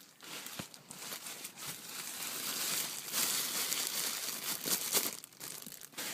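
Crinkly material being handled and crumpled: a stretch of rustling and crackling, loudest in the middle.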